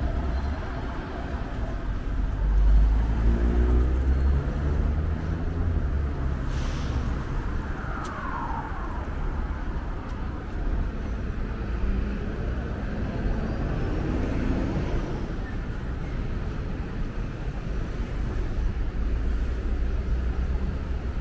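Urban street traffic: motor vehicles running and passing with a low engine rumble, and a brief falling whine about eight seconds in.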